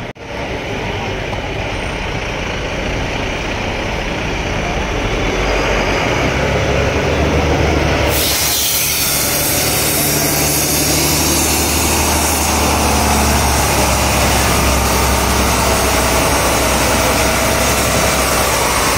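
Volvo B9R multi-axle coach's diesel engine running as the bus pulls away, with a low steady hum that grows louder from about six seconds in. A steady hiss starts suddenly about eight seconds in and carries on under the engine.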